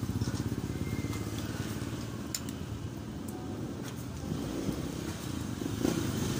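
A motor vehicle engine running steadily with a fast, even pulse, and a few light clicks of a metal spoon against a glass bowl.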